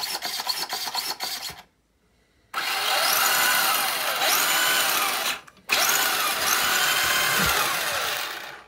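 Hirobo Zerda RC buggy's electric motor and belt-driven four-wheel-drive drivetrain, run up with the wheels spinning free on a stand. A second or so of rapid ticking and a short pause come first. Then two throttle bursts follow, each a whine that rises in pitch, holds and eases off.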